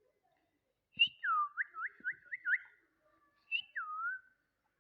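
Parrot whistling: a short high note, then a swooping whistle that dips and rises, followed by a quick run of about four rising whistled notes. The same short note and swoop come again a little past the middle.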